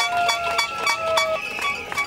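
Metal pots beaten with spoons in a cacerolada, a steady clanging rhythm of ringing metal strikes at about three a second. A long held tone drops slightly in pitch and stops about one and a half seconds in, and a shrill whistle sounds over the clanging.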